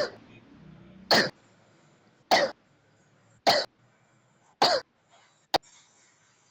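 A person coughing: four single coughs, evenly spaced about a second apart, then a short sharp click.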